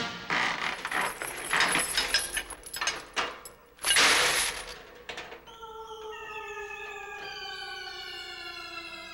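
Cartoon sound effects of a metal stage structure collapsing: clattering and crashing metal, with a loud crash about four seconds in. Then comes a long, slowly falling tone, like a siren winding down.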